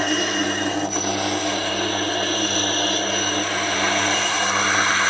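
Tormek T8 wet sharpener's SG250 grinding stone turning while its surface is being roughened, a steady gritty rasp over the machine's low hum.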